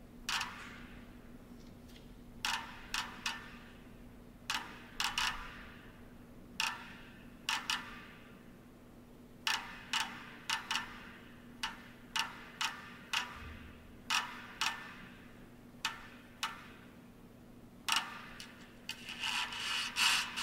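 Wooden board with metal fittings creaking and clicking under a dancer's shifting weight, picked up and amplified: irregular short scraping clicks, each with a brief metallic ring, some in quick pairs or triplets, turning to a denser run of scraping near the end, over a steady faint hum.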